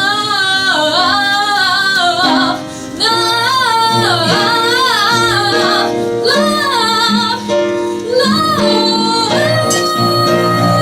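A woman singing a melismatic vocal run over instrumental backing, in several wavering, ornamented phrases, settling on a long held note near the end.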